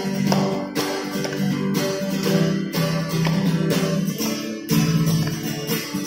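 Instrumental break in a Hindi children's action song: acoustic guitar strumming chords in a steady rhythm, with no singing.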